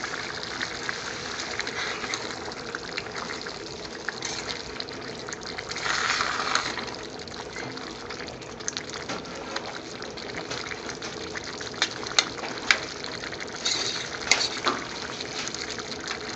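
Curry base gravy simmering in a stainless-steel pan on a gas hob, a steady bubbling hiss with a louder rush about six seconds in. Later a metal spoon stirs it and clinks sharply against the pan several times.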